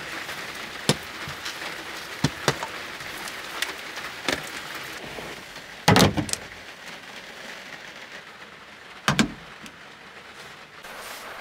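Light rain pattering on a small van's roof, heard from inside the cabin, with scattered drips and clicks. Two louder knocks, about six and nine seconds in, come as lamps are handled against the ceiling and door-pillar trim.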